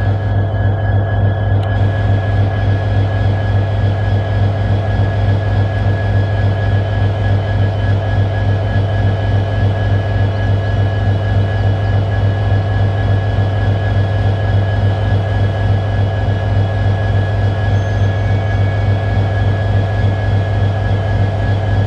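Canadian National diesel locomotive idling after start-up: a steady low drone with an even, rhythmic pulse and a thin steady whine above it.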